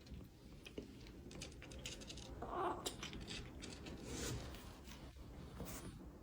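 Kitten licking, a run of faint, irregular small wet clicks.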